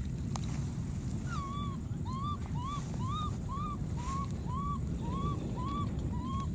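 Baby monkey giving a quick series of about ten short cooing calls, each rising and falling in pitch, roughly two a second, starting about a second in. Beneath them runs a steady low rumble.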